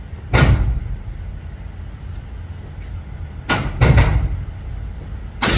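Four suppressed rifle shots indoors, each a dull heavy crack with a short boom after it: one near the start, two about half a second apart past the middle, and one at the end.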